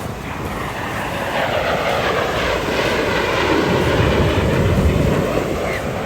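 An airplane flying past overhead: a steady engine roar that grows louder and slides down in pitch as it passes.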